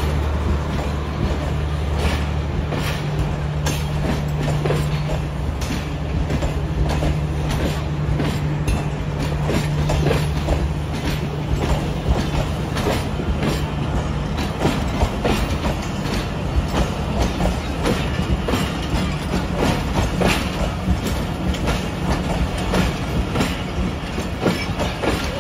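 Pakistan Railways passenger coaches rolling past close by, their wheels clicking quickly over the rail joints above a steady rumble. A steady low drone, from the passing power van's generator, fades out about halfway through.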